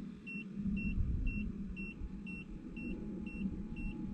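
Short high electronic beeps, about two a second, from the solar tracker's controller, over a low steady rumble as the tracker's drive tilts the panel back toward horizontal after its wind-protection cycle.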